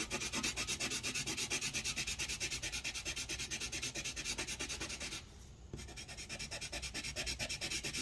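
A white drawing pencil scribbled rapidly back and forth on paper, shading a swatch in about nine scratchy strokes a second, with a short break about five seconds in.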